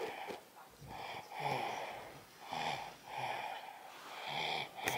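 A sleeping, poorly baby snoring softly around a dummy, a string of breaths coming roughly once a second.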